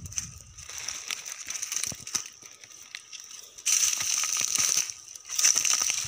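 Footsteps crunching and crackling through dry grass, dead leaves and twigs, loudest in the second half, over a steady high buzz.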